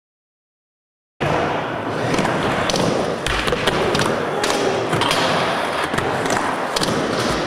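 Silence for about a second, then skateboard wheels rolling on wooden ramps in an indoor skatepark, with repeated sharp clacks and thuds of the board striking the ramp and coping.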